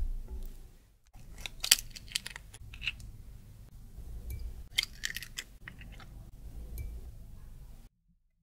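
Hen's eggs being cracked and separated by hand over a glass bowl: sharp clicks and cracks of eggshell, the loudest about two seconds in, with more near the middle. At the very start a silicone spatula scrapes briefly through mascarpone cream in the bowl.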